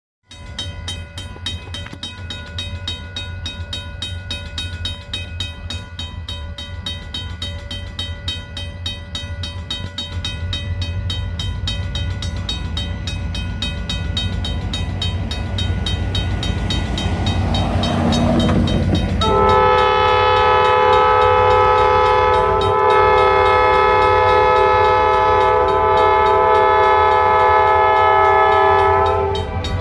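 EMD SD40 diesel locomotives' 16-cylinder two-stroke engines running and growing louder as the train nears. About two-thirds in, the locomotive's air horn blows one long chord that holds for about ten seconds and cuts off near the end.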